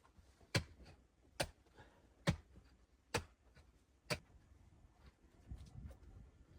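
Five sharp knocks, evenly spaced a little under a second apart, followed by faint low rumbling near the end.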